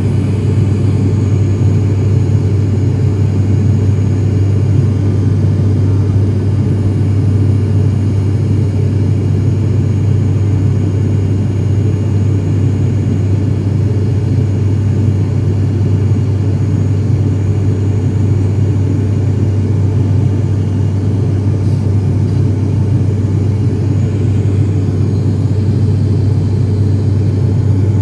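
Propeller plane's engines and propellers running at a steady, even drone with a strong low hum, heard from inside the cabin during takeoff and climb.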